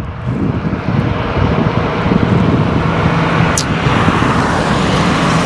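Highway traffic going past: a steady rush of tyre and engine noise with a low rumble, swelling over the first two seconds and then holding. A single sharp click comes about three and a half seconds in.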